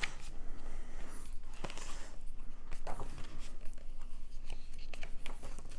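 Pages of a hardcover rulebook being turned by hand: paper rustling with scattered light clicks.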